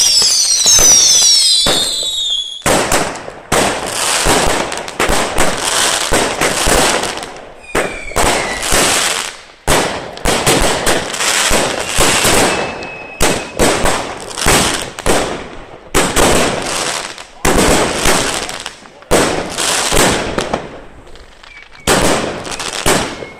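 Fireworks going off. It opens with a whistling firework falling in pitch, then loud bangs follow about once a second, each dying away before the next.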